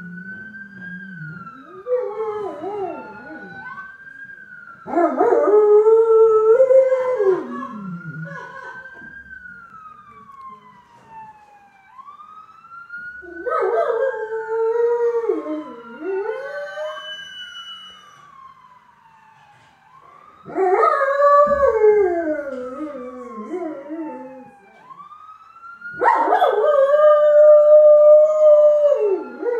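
A dog howling in about five long, wavering howls, pitched along with a wailing siren. The siren rises and falls slowly every few seconds underneath, and the howls are the loudest sound.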